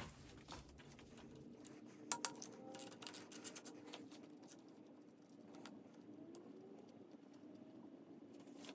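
Faint light metallic clicks and taps of a socket being fitted and turned by hand on the ARP connecting-rod bolts of an LS engine, with a couple of sharp ticks about two seconds in and a short cluster around three seconds.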